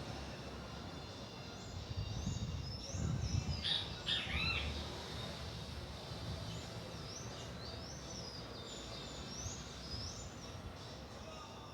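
Birds chirping: a few arching calls about three to four seconds in, then a run of short high chirps through the middle. A low rumble sits under the first half.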